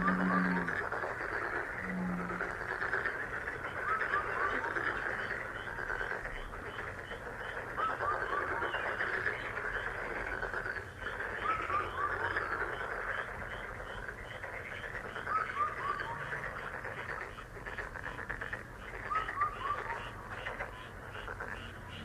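A dense frog chorus calling continuously. Short runs of three or four quick falling chirps recur every few seconds over rapid ticking calls, and a couple of short low calls come in the first two seconds.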